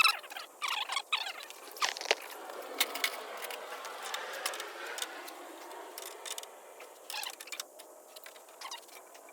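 Workshop handling sounds on a car: many small metallic clicks and clinks, with short high squeaks in the first couple of seconds and a rubbing hiss in the middle.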